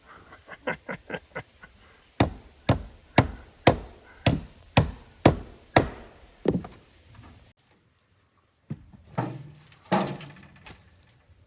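Hammer blows on wood: a few light taps, then a steady run of about eight hard strikes at about two a second, and two more strikes near the end.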